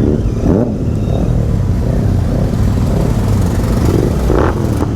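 Several large motorcycle engines running together with a steady, low rumble.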